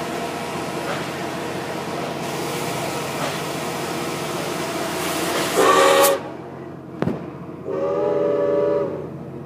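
Steam locomotive whistle sounding two blasts, a short one about five and a half seconds in and a longer one about two seconds later, over the steady rushing noise of the moving train. For the first six seconds the sound is muddied by a hand rubbing over the microphone.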